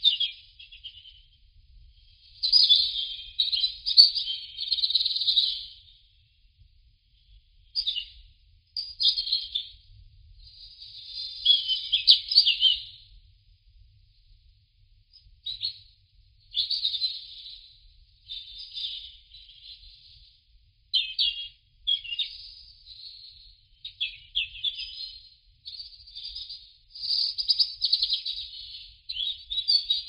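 Songbird singing in short phrases of rapid high notes, each phrase one to four seconds long, separated by brief pauses.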